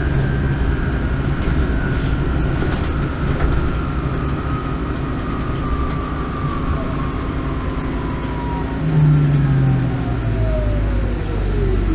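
Inside a MAN Lion's City Hybrid bus: the electric drive's whine falls steadily in pitch as the bus slows, over a constant rolling rumble. A deep engine drone stops at the start and comes back about ten seconds in.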